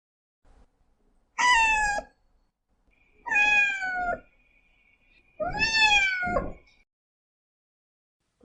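Cat meowing three times, each meow falling in pitch and lasting about a second, with pauses between them.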